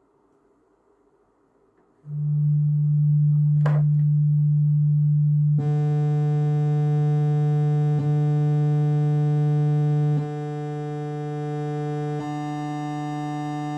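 A steady low electronic tone of about 148 Hz from a DAC–RAM–ADC module's output. It starts as a pure sine about two seconds in, then turns buzzier with many overtones as different wavetables stored in RAM are switched in. Each change brings a small click, about every two seconds from five and a half seconds in.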